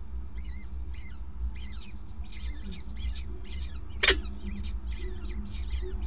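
Peregrine falcon chicks giving quick runs of high, thin begging cheeps while an adult feeds them prey, over a steady low hum. A single sharp click about four seconds in.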